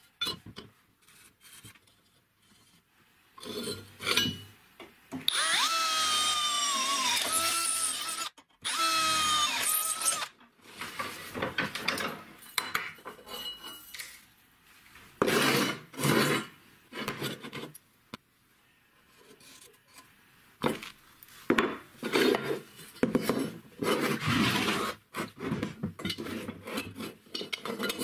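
Tools working steel. About five seconds in, a power tool runs for several seconds, its pitch sagging and recovering as it bites. Bunches of short rubbing and scraping strokes on metal fill the rest.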